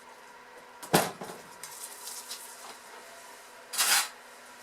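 A soap mold frame being handled on a work surface: one sharp knock about a second in, then a brief scrape near the end.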